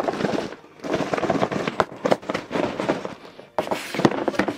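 Cardboard boxes shaken hard, the inner carton knocking and scraping inside the outer box in several bursts of crackling clatter with short gaps. The inner carton is jammed because the outer box is dented.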